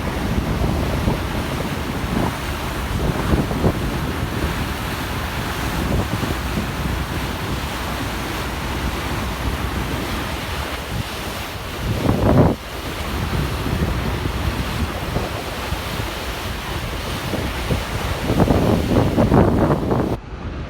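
Wind buffeting the microphone over the steady rush of water past a moving ferry, with a strong gust about halfway through and more gusting near the end.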